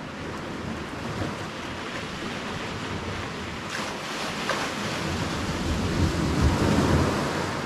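Sea surf washing against the shore with wind buffeting the microphone, swelling louder from about four seconds in and easing off near the end.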